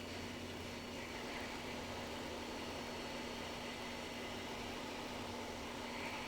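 Hot air rework station blowing steadily: a constant fan hiss with a low hum, as the board is heated to desolder the connector.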